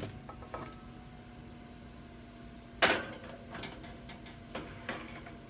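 Cake pans going into a kitchen oven: light metal knocks, then a loud clunk about three seconds in as the oven door shuts, over a steady hum.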